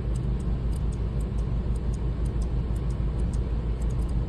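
Steady low hum of background machinery, with faint crisp snips, a few a second, of curved grooming shears cutting test fur.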